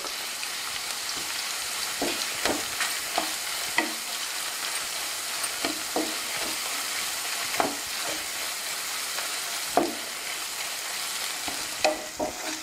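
Ground mustard-seed and garlic paste sizzling in hot oil in a nonstick kadai, with a steady hiss, while a wooden spatula stirs it, scraping and tapping the pan every second or two. The paste is being fried so that its raw smell cooks off.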